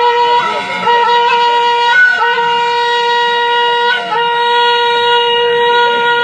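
A wind instrument plays a held, reedy melody, sustaining each note and stepping to a new pitch every second or two.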